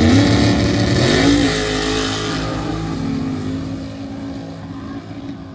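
A mud-racing vehicle's engine revving hard, its pitch climbing over the first second and a half, then fading steadily as it pulls away.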